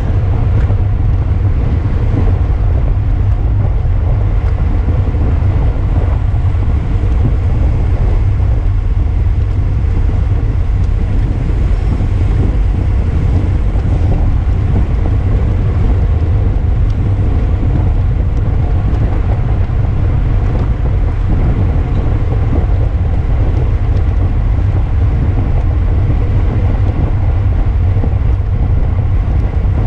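Wind rushing over the microphone of a camera on a moving bicycle: a steady, loud, low rumble with no break.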